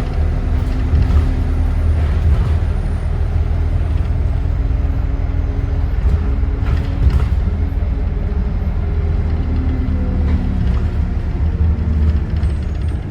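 A bus's engine running, heard from inside the bus: a heavy low rumble with a humming engine tone that shifts up and down in pitch a few times.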